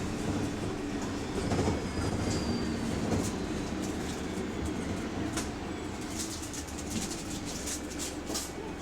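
Interior of a London bus in motion: a steady low rumble of the drivetrain and road, with loose interior fittings rattling and clicking, the rattles getting busier in the second half.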